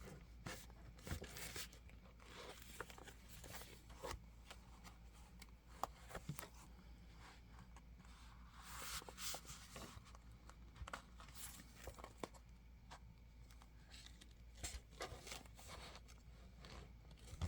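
Faint crinkling and rustling of a plastic planner cover being handled and pulled, with scattered small clicks and taps and a louder rustle about nine seconds in.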